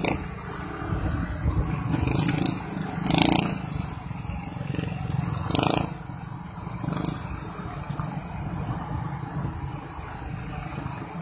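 Small motorcycle engine running while riding along a rough lane, heard from on the bike, with two brief louder noises about three and six seconds in.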